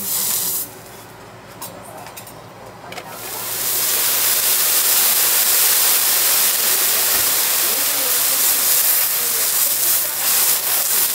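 Water boiling off a hot teppanyaki griddle in a loud, steady hiss of steam, starting about three seconds in, as the steel plate is wiped down with a spatula and cloth.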